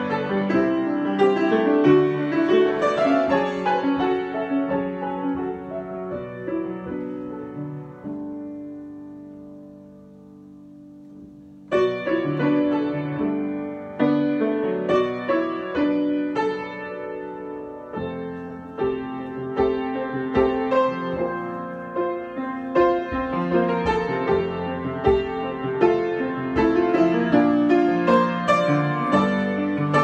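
Grand piano played solo in a free improvisation. About a third of the way in, a held low chord is left to die away for several seconds, then the playing comes back in sharply and runs on in quick chords and runs.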